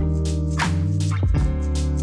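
Background music with a steady beat, bass and sustained melody notes.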